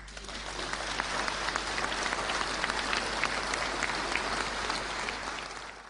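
Audience applauding, a dense patter of many hands clapping that swells over the first second and tapers near the end.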